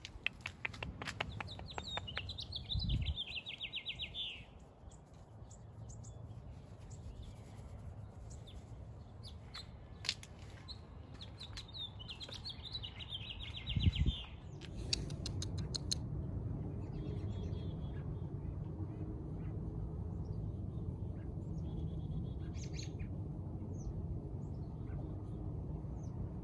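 Songbirds chirping, with a rapid trilled phrase heard twice, in the first few seconds and again around the middle. A low thump comes with each trill, and from about halfway a steady low hum sets in under more scattered chirps.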